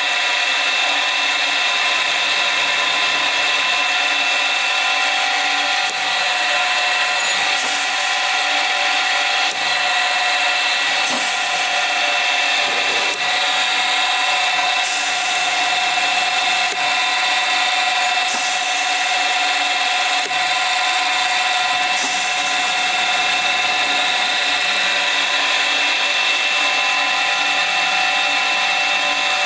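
DUBELFIX horizontal woodworking drill running steadily, its motor giving an even whine with a constant high tone.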